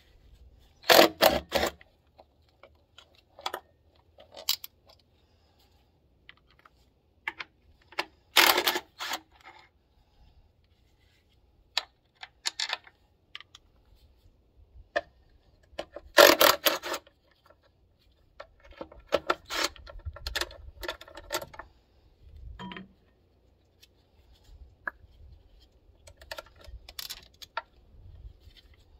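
A cordless driver spinning out valve-cover bolts on a Caterpillar 3406 diesel in several short bursts, one of them held for about two seconds, with quiet gaps between.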